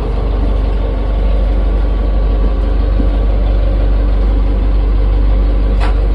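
Boat engine running steadily, a loud, even low drone.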